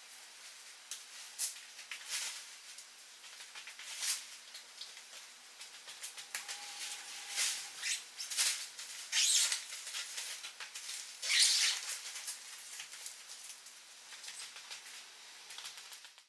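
Nylon tent rainfly rustling and swishing irregularly as it is pulled over the tent and fitted, with the loudest swishes a little after the middle. A faint steady low hum runs underneath.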